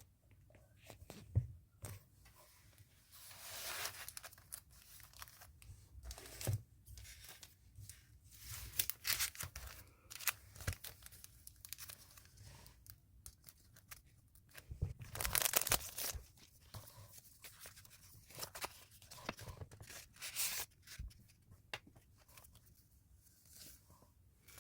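Shipping packaging torn open by hand: irregular ripping and rustling strokes of tape, paper and plastic, the longest and loudest rip about fifteen seconds in.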